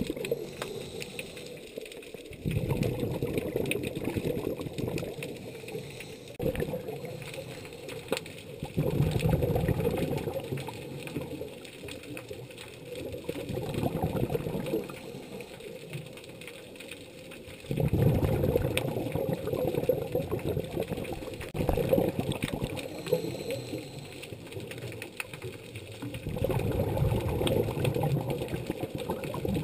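Scuba diver's breathing heard underwater: surges of exhaled bubbles rattling out of the regulator every few seconds, with quieter stretches between them while the diver breathes in.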